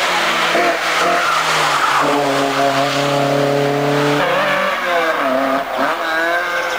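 A competition car's engine revving hard under full throttle up a climb. The note holds high, then drops and climbs back a couple of times near the end as the driver shifts and lifts for corners.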